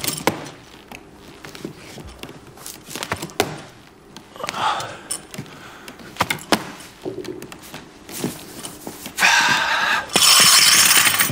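Scattered clinks and knocks of gym equipment, metal barbells and weight plates, then a loud rattling noise for the last two seconds.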